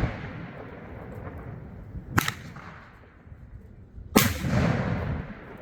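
Aerial fireworks going off: a sharp report about two seconds in, then a louder bang near four seconds that rolls on in a long echo for about a second.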